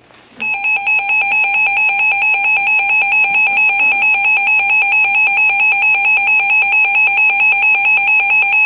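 Emergency Alert System two-tone attention signal, the 853 Hz and 960 Hz tones sounded together. It starts about half a second in and holds loud and steady, signalling that an emergency alert message follows.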